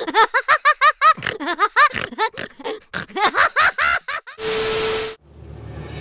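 High-pitched cartoon voice giggling in quick repeated syllables. Then a short burst of static-like hiss with a steady buzzing tone. Near the end, music swells up over a low drone.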